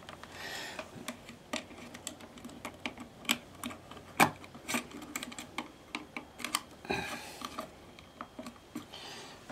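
Irregular light clicks and taps as banana-plug test leads and a resistor are handled and pushed into the sockets of a plastic circuit test board, with a few louder knocks among them.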